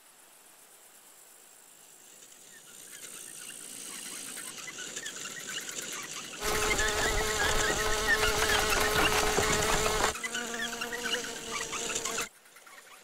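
A fly's buzz, growing louder as it approaches and then loud and close from about six seconds in. It shifts in pitch around ten seconds and cuts off abruptly shortly before the end.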